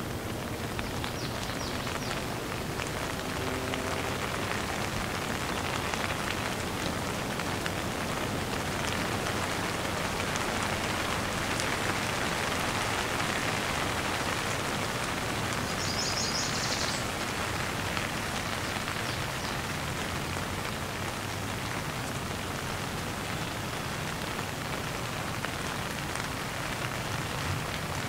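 Heavy downpour of rain falling steadily, an even, unbroken hiss of drops.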